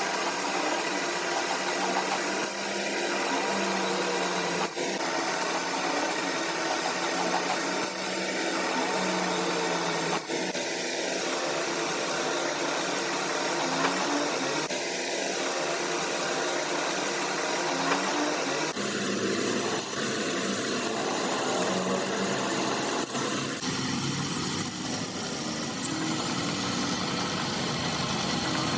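Metalworking lathe running steadily with a machine hum, its sound changing abruptly about two-thirds of the way through.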